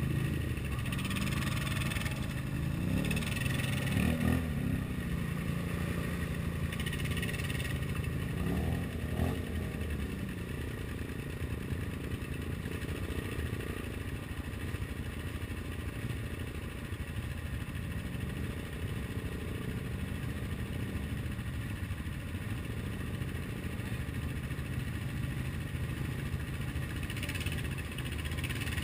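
ATV engine running at low trail speed, revving up and down a few times in the first ten seconds, then holding steady.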